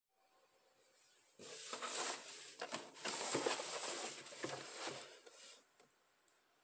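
Cardboard shoebox being handled and turned in the hands: rustling and scraping with a few light knocks, starting about a second and a half in and dying away about a second before the end.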